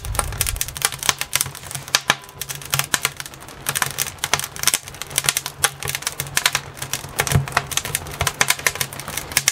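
Wood fire crackling, with sharp irregular pops and snaps several times a second as the freshly lit wood burns and builds up coals.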